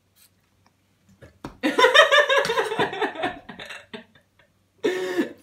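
A woman's wordless vocal reaction to a very sour spray candy: a loud, pulsed, strained cry starting about a second and a half in and lasting about two seconds, then a short held note near the end.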